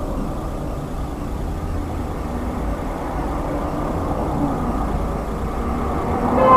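Steady low rumble of traffic and a running car engine, picked up by a dashcam in a stationary car. A loud pitched tone starts right at the very end.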